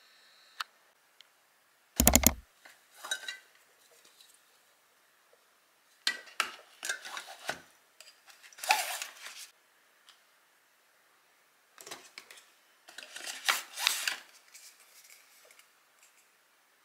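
Plastic skincare bottles and jars clicking and knocking against each other as they are lifted out of and set back into a storage basket, in several short spells of handling. A single sharp knock about two seconds in is the loudest sound.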